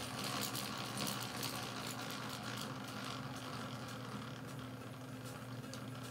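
Small mid-1800s horizontal steam engine running, with a rapid metallic ticking clatter that comes from its governor's bevel gears. The clatter is loudest in the first couple of seconds, then settles to a steady level.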